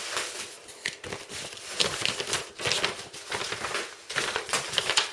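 Paper and packaging rustling and crinkling as it is handled, a string of irregular crackles.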